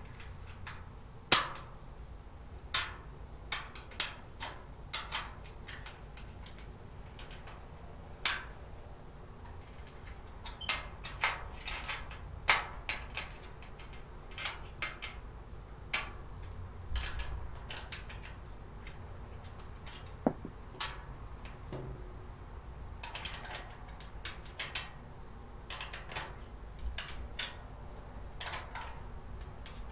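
Irregular sharp clicks and knocks of a small hand tool and the storage cart's parts being handled and fastened during assembly, the loudest a single crack about a second in, with a few seconds of lighter rattling and scraping later on.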